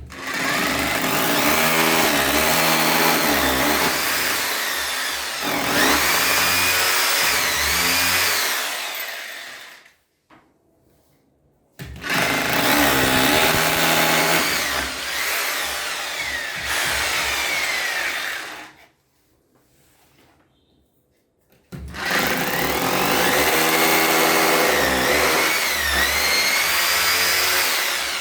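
Electric drill boring into a wall in three runs of several seconds each, with short pauses between them. The motor pitch rises and dips as the bit bites.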